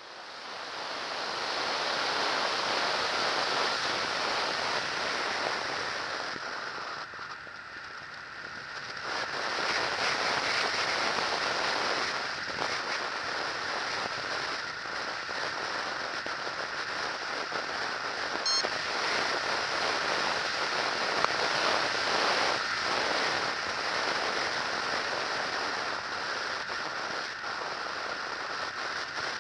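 Airflow roaring past a camera mounted on an RC model plane in flight, mixed with its electric motor and propeller: a steady rushing hiss that eases for a couple of seconds about seven seconds in, then picks up again.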